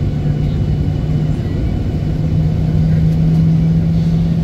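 Jet engines of a Ryanair Boeing 737 heard from inside the passenger cabin as it moves on the ground: a steady low drone over rumble, its pitch stepping up slightly about two seconds in.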